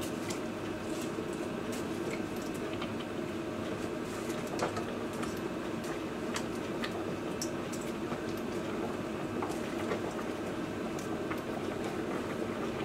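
A large stainless steel pot of water at a steady boil with spaghetti in it. Scattered light clicks come as a plastic spatula pushes the pasta down against the pot, the clearest a little under halfway through.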